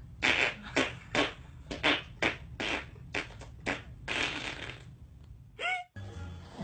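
A baby's quick, noisy huffing breaths, about a dozen in an uneven run, followed near the end by one short high squeal.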